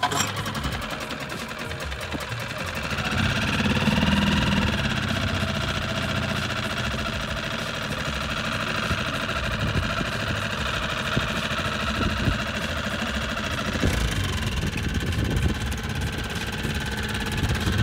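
Parsun 6 hp single-cylinder four-stroke outboard engine catching on a pull of the recoil starter cord, running faster for a couple of seconds about three seconds in, then idling steadily with the throttle closed. About fourteen seconds in its sound changes with a clunk as it is shifted into gear.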